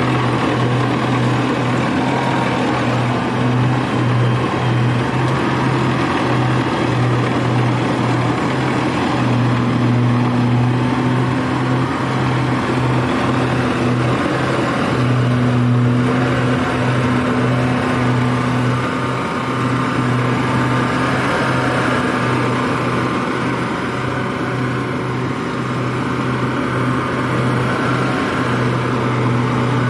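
Engine of a rice-harvesting machine running steadily: a loud, even drone that holds the same speed throughout.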